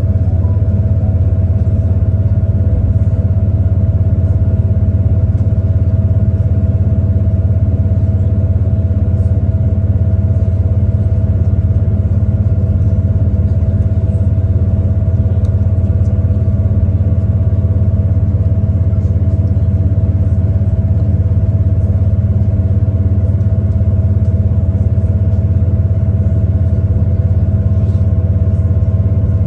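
V/Line VLocity diesel railcar running at speed, heard from inside the carriage: a steady low engine drone with a faint steady whine above it, unchanging throughout.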